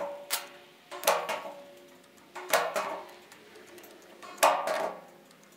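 Stud welder with a spot-welding tip zapping a steel door skin to heat-shrink high spots, which pulls the stretched metal down. The zaps are short and sharp, mostly in pairs about every one and a half seconds, each trailing a brief ring.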